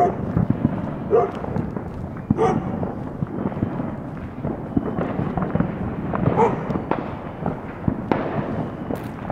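Fireworks and firecrackers going off all around, a dense, irregular run of overlapping crackles and pops with no pause.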